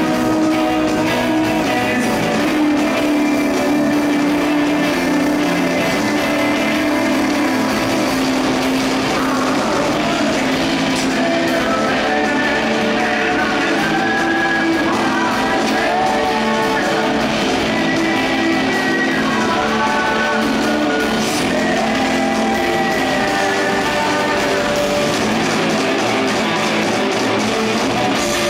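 Rock band playing live through a club PA, heard from the audience: electric guitars and drums with sustained chords and a melody line wandering in pitch through the middle.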